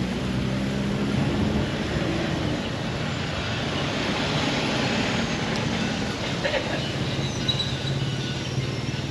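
An engine running steadily: a low hum under a continuous rushing noise.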